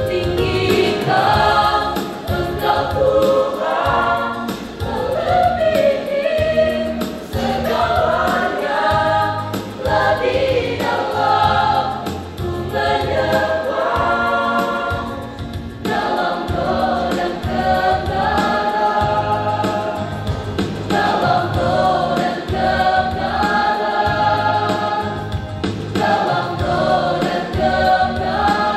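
Mixed choir of young women and young men singing together in parts, in phrases of a few seconds each.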